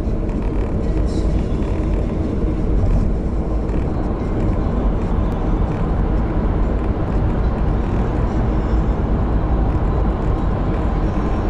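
Steady low rumble of tyre, road and engine noise inside the cabin of a Suzuki Escudo cruising at expressway speed.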